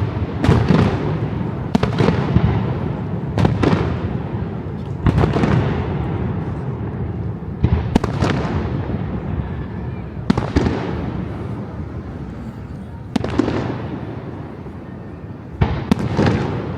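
Aerial fireworks shells bursting: a sharp bang every one to three seconds, each followed by a rolling rumble that dies away.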